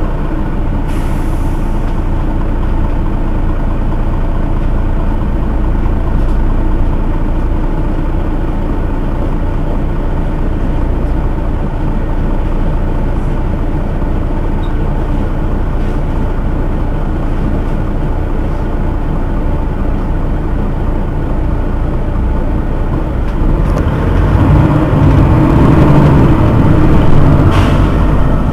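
Mercedes-Benz Citaro city bus's rear-mounted engine idling steadily at a stop. A louder rumble swells up near the end, with a short hiss.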